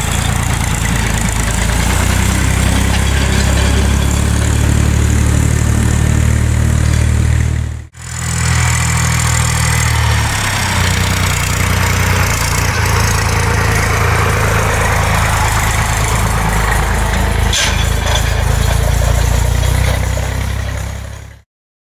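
Massey Ferguson 255 tractor's four-cylinder diesel engine running hard under load as it pulls a set of field rollers. The sound drops out for a moment about eight seconds in, and there is one sharp click near the end before it fades out.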